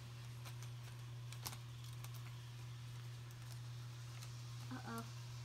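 A few sharp, separate clicks of HO-scale model train cars being set on the track and coupled by hand, over a steady low hum.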